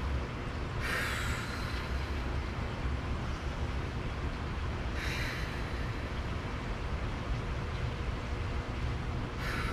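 A woman takes three deep breaths while stretching, heard as short airy exhales about a second in, around five seconds in, and at the end. A steady low rumble runs underneath.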